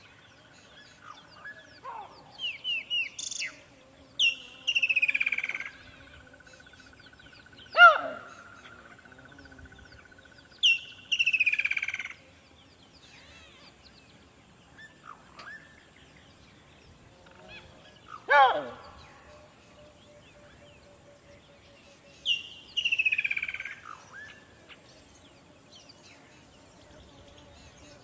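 Birds calling at intervals: about a second long calls that slide downward, repeated three times, two sharper and louder single calls, and a few short chirps.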